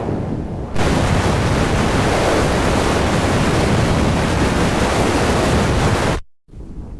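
Edited variations of a cat purring sound effect. A loud, hissy, noise-like variant cuts in under a second in and stops abruptly near the end, and a quieter purr variant follows.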